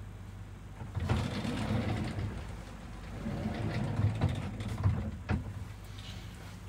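Steady low hum inside a sleeper-train cabin. From about a second in, louder rumbling with a few clicks and knocks as the cabin's sliding door is handled, the sharpest a little after five seconds.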